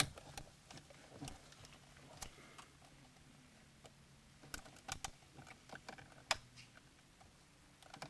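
Faint, scattered plastic clicks and taps as a metal pick presses the release tabs of small wiring-harness plugs behind an Infiniti G37's shift bezel and the plugs come free. A short run of clicks comes about halfway through, and a sharper single click a little after six seconds.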